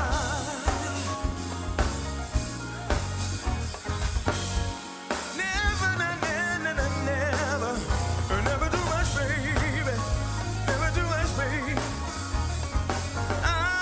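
Live band playing: drum kit, keyboards and bass under a sung vocal with wavering held notes and runs. The low end drops out briefly about five seconds in.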